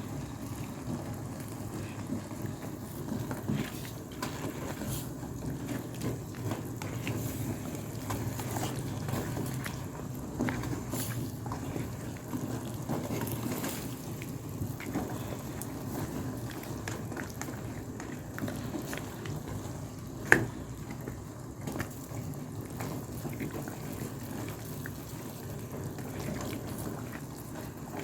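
Pot of chicken-feet and chayote soup simmering, a steady bubbling with scattered small clicks. One sharp click about twenty seconds in.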